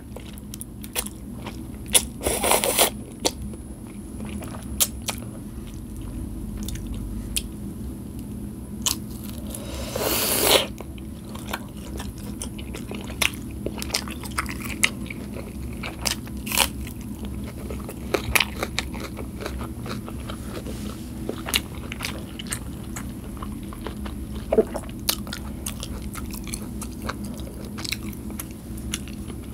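Close-miked eating of noodles: wet chewing and many small mouth clicks, with two louder noodle slurps about two and ten seconds in.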